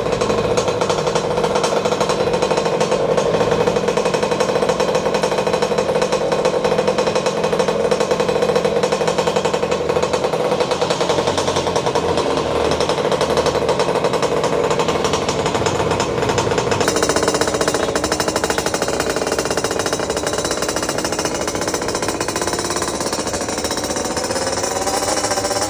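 50cc dirt bike engine running with a rapid, steady firing rattle, its engine speed rising near the end.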